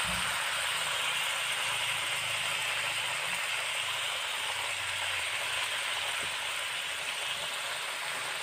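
Ketchup and butter sauce with garlic and onion sizzling steadily in a hot pan.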